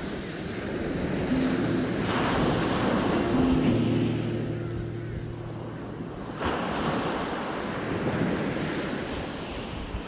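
Sea waves breaking and washing up a beach. The surf swells about two seconds in and again about six and a half seconds in.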